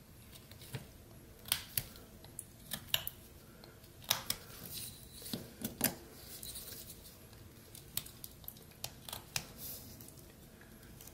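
Rough Rider pocket knife blade cutting into old pine: an irregular scatter of sharp clicks and a few short scraping shaves as chips are sliced off.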